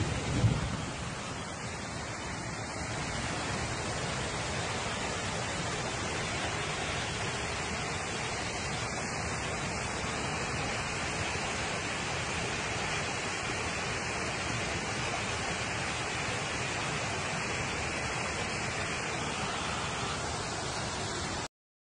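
Floodwater rushing through a street: a steady, even rush of noise, with a couple of low thumps at the very start. It cuts off suddenly near the end.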